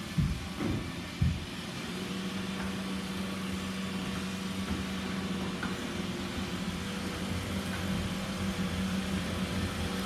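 Robot vacuum running with a steady motor hum, after a few knocks in the first second or so.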